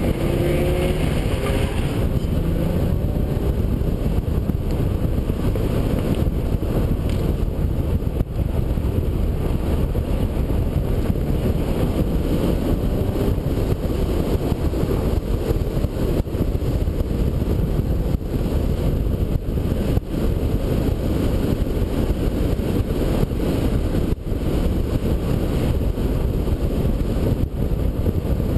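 Steady rush of wind and road noise on an exterior-mounted camera riding on a moving NSX sports car, with the car's mid-mounted V6 running underneath. A faint rising engine note shows near the start.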